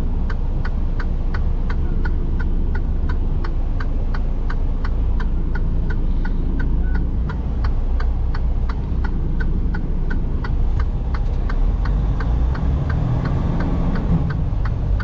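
Semi truck turn-signal flasher ticking, about three clicks a second, over the diesel engine's steady rumble heard from the cab. Near the end the engine works harder as the truck pulls out.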